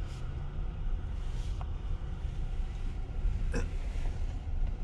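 Low rumble of a Tesla Model S Plaid rolling slowly, its tyre and road noise heard from the cabin, with one short squeak about three and a half seconds in.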